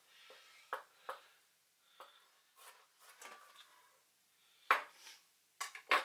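A chef's knife cutting red pepper on a plastic chopping board: a few light, separate taps of the blade on the board, then a few sharper knocks near the end.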